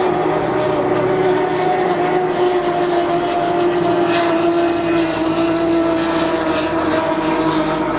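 Class 1 offshore racing powerboat engines droning steadily at speed, the pitch sinking slowly as the boat runs away.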